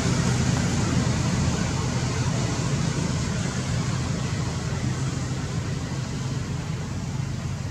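A steady low rumble and hiss of motor traffic, slowly growing fainter.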